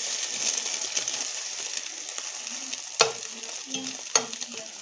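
Eggs frying in oil in a stainless steel pan, a steady sizzle, with two sharp knocks of the spatula against the pan about three and four seconds in.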